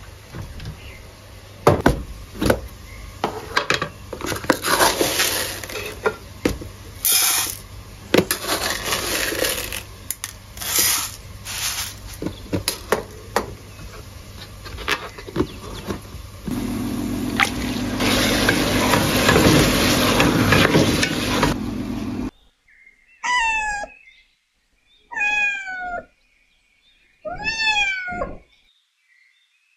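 Kitchen handling sounds: scattered clicks and knocks of containers and a cupboard, then several seconds of steady rushing noise with a low hum. Near the end a domestic cat meows three times, a couple of seconds apart.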